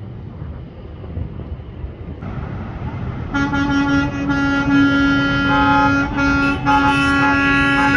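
Several vehicle horns honking together in long, held blasts that start about three seconds in, after a low rumble.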